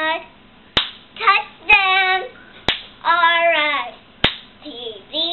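A young girl chanting a cheer in a high, sing-song voice, punctuated by about four sharp hand claps.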